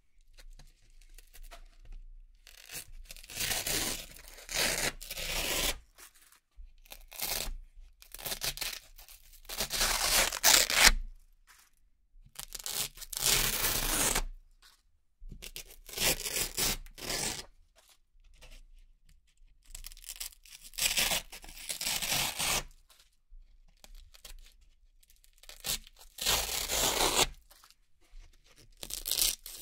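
Velcro-backed circles being ripped off a Velcro board one after another: crisp, crunchy tearing of hook-and-loop pulling apart, each rip lasting about a second, with short pauses between.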